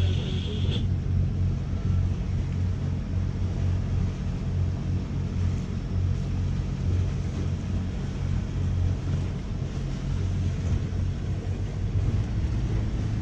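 Inboard diesel engine of a Dufour 375 GL sailing yacht running steadily under way, a constant low hum.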